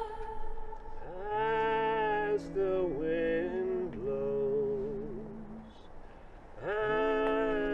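A slow lullaby sung in long held notes, several pitches sounding together. It comes in two phrases, each sliding up into its first note, with a short pause about six seconds in.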